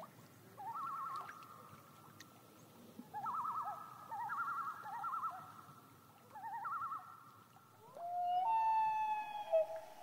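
Common loons calling: three bouts of tremolo, quavering notes that waver rapidly in pitch, and near the end a call that sweeps up into a long held wail.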